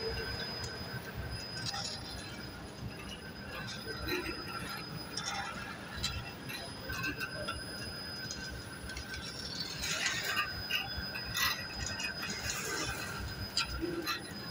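High-speed nine-spindle automatic bobbin winder running while filling long bobbins with thread: a steady high whine over a low hum, with irregular light metallic clinks and rattles, busiest about two-thirds of the way in.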